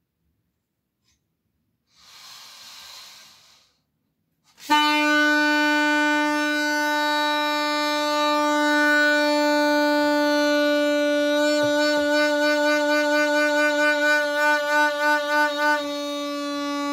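Homemade PVC-pipe and balloon horn sounding: after a short rush of air, a loud steady horn tone starts about five seconds in and is held, wavering in a quick pulse for a few seconds near the end.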